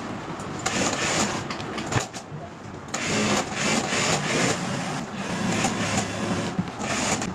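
Factory machine running with a continuous mechanical chatter. A sharp click comes about two seconds in, followed by a brief dip before the machine picks up again.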